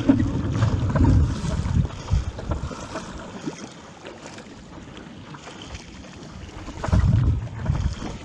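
Wind buffeting the microphone in gusts, loudest in the first two seconds and again near the end, over water noise around a surfski on the open sea.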